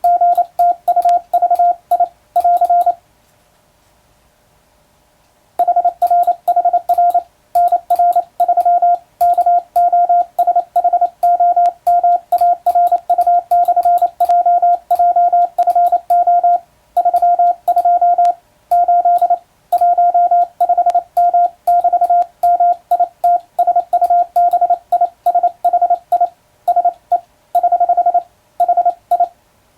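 Morse code sent by hand on a telegraph key: a steady mid-pitched sidetone keyed on and off in short dots and longer dashes, with a faint click at each keying. The sending pauses for about two and a half seconds a few seconds in, then runs on.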